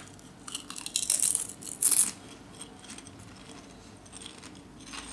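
Crisp potato chips crunching as they are bitten and chewed: two loud crunches about one and two seconds in, then softer, scattered chewing crackles.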